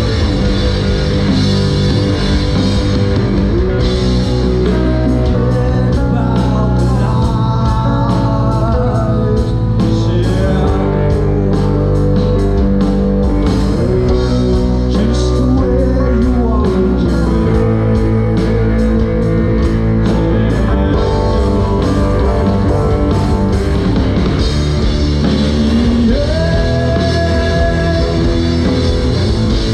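A live rock band playing, an electric guitar carrying the melody over drums with steady cymbal strokes.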